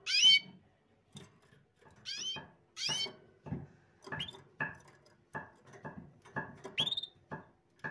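A small cage bird chirping four times, the loudest chirp right at the start and another near the end, among a run of short dry clicks and taps.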